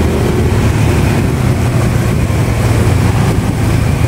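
Motorcycle engine running steadily while riding, with a steady road-noise hiss over its low hum.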